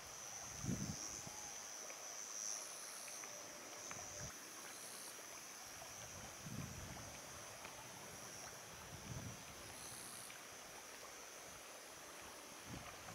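Faint lakeside outdoor ambience: a steady high hiss with a few soft low gusts of wind on the microphone, and no gull calls.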